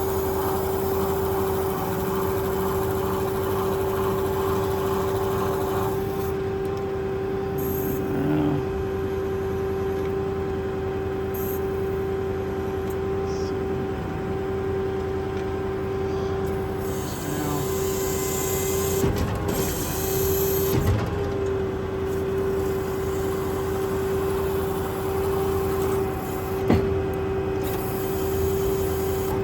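A 6.4 Power Stroke diesel running with its PTO-driven hydraulic pump engaged, giving a steady whine while the truck-mounted crane is operated. A few clunks from the crane in the second half.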